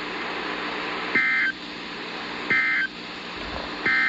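Three short bursts of two-tone digital data, about 1.4 seconds apart, over a steady radio hiss. They are the Emergency Alert System's SAME end-of-message code that closes the warning broadcast.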